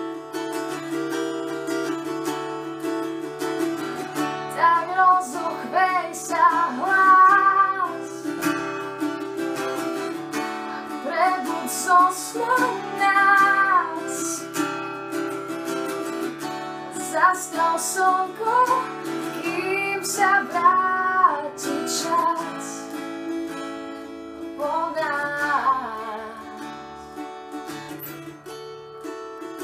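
Acoustic guitar playing a steady chord pattern, with a woman's voice singing a melody over it in four separate phrases.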